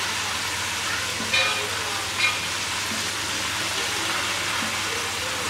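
Batter-coated chicken pieces deep-frying in hot oil with a steady sizzle, lightly browned and near done. A wooden spatula and wire skimmer turn the pieces, with two brief sharper sounds about one and two seconds in.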